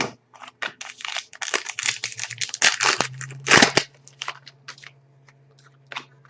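A trading card pack wrapper being torn open and crumpled by hand, a dense run of crinkling and crackling that is loudest about three and a half seconds in. After that come a few scattered light clicks as the cards are handled.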